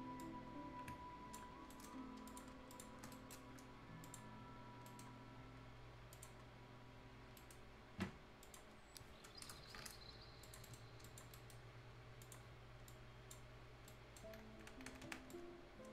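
Faint, irregular clicking of a computer mouse and keyboard, with one sharper click about eight seconds in. Quiet background music plays underneath.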